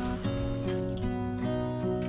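Background music: acoustic guitar playing a steady chord progression.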